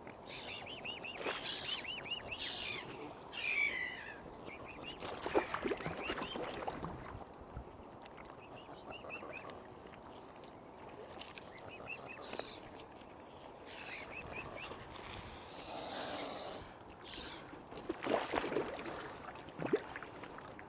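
Wild birds calling, with short runs of high repeated chirps from small birds several times over. Louder, rougher calls come about five seconds in and again near the end.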